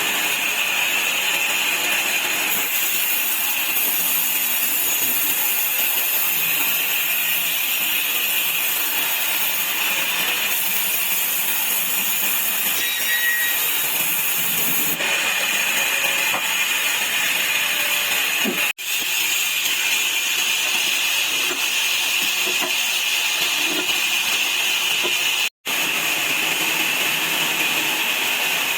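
Sawmill saw running and cutting wood into slats: a steady, high-pitched noise that breaks off for a split second twice, once past the middle and again near the end.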